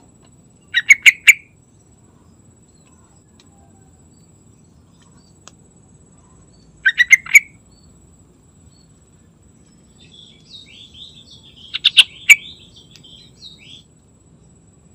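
Yellow-vented bulbul singing: three short phrases about five seconds apart, each a quick run of three or four loud notes, with softer twittering around the last phrase near the end.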